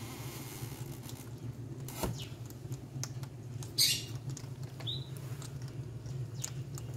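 Baby hedgehogs chewing hard pellet food from a bowl: scattered small crunches and clicks, with one louder sharp noise about four seconds in. A steady low hum runs underneath.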